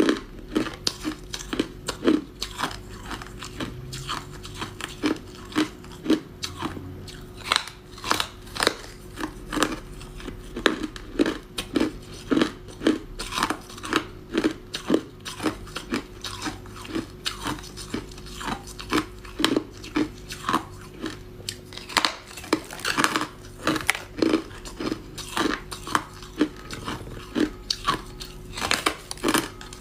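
A person biting and chewing ice, frost and thin refrozen ice from a freezer, close to the microphone: a continuous run of sharp crunches, about two or three a second.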